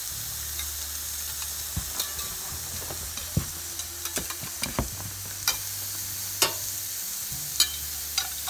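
Raw ground-beef burger patties sizzling on the hot grate of a charcoal grill, a steady hiss with scattered sharp clicks and pops every second or so.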